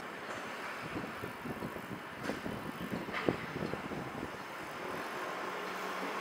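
Irregular rattling and light knocks from a bicycle and its camera mount moving along a city street, with one sharper knock about three seconds in, over a low street hum.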